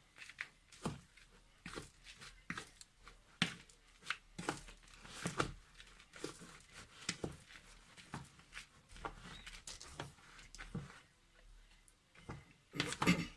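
Dry rustling and light, irregular clicks of a dried insect-and-shrimp food mix being handled and tipped into a bowl of soft bird food.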